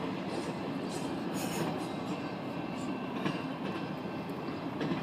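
Steady rumbling vehicle noise heard from inside a car, with a few faint ticks and no horn.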